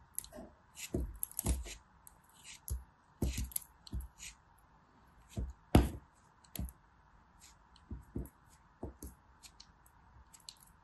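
Craft knife cutting and scraping through a moulded piece of kinetic sand: a string of short, irregular crunches, the loudest a little before six seconds in.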